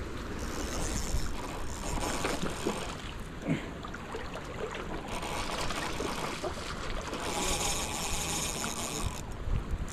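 Steady rush of river water with wind noise on the microphone, and small scattered clicks; a brighter hiss swells for about two seconds near the end.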